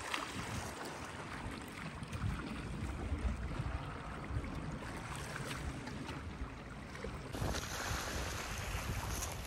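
Wind buffeting a phone microphone at the water's edge, a gusty low rumble over a steady rush of small waves on the shore.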